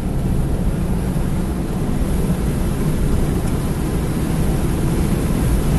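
Suzuki Swift Sport ZC33S with its K14C 1.4-litre turbocharged four-cylinder engine accelerating hard down a straight, heard as a steady low rumble of engine, tyre and wind noise.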